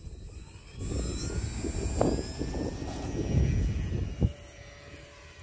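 Twin A2212 1000KV brushless outrunner motors with APC 9x4.7 propellers spooling up to full throttle for takeoff, a rising whine over a low rumble. A sharp knock at about four seconds, after which the motor sound drops off and steadies.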